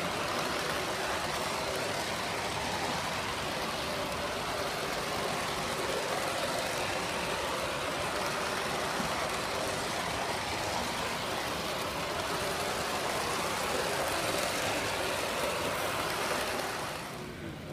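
Model diesel locomotive in New York Central livery running on track close to the microphone: a steady rolling rush of wheels and motor that holds level for the length of the run.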